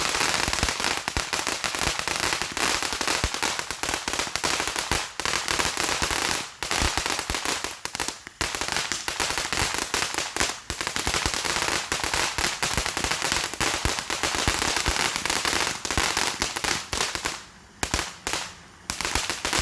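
Consumer firework crackling in a long, loud run of rapid sharp pops, with a few brief pauses near the end.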